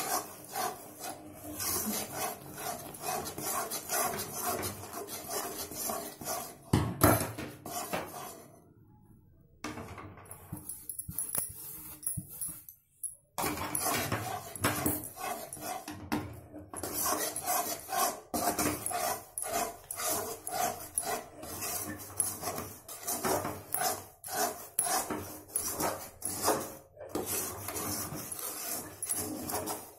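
A long wooden spoon scraping and stirring round an aluminium kadai in quick repeated strokes, working gram flour into hot sugar syrup, with one louder knock about seven seconds in and two short pauses.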